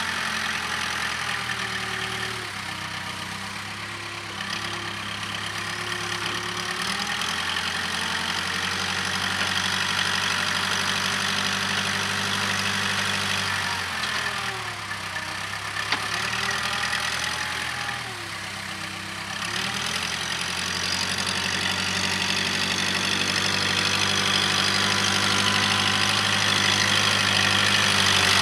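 Case 580K backhoe's diesel engine running steadily, its pitch dipping briefly about three seconds in and twice more in the middle, as the machine takes load while working compost.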